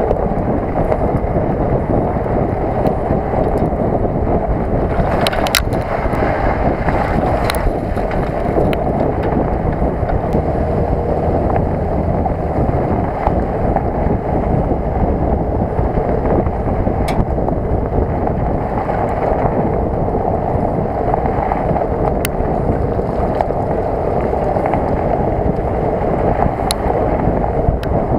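Steady wind rush on a camera mounted outside a Ford Ranger pickup, with tyre and road noise from driving along a dirt track. A few sharp ticks are scattered through it.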